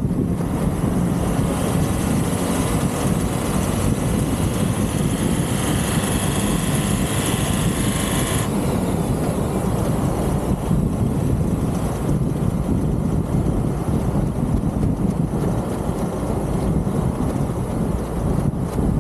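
Motorcycle on the move: engine running steadily under heavy wind rush on the microphone. A higher hiss in the first half cuts off suddenly about eight seconds in.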